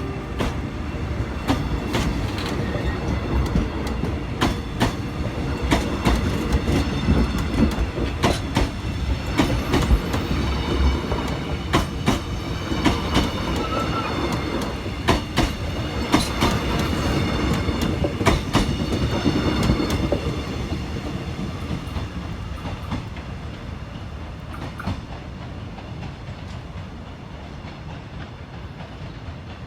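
KORAIL Mugunghwa-ho passenger train pulling out of the station: a running rumble with wheels clicking over rail joints, gradually fading away over the last third as it leaves.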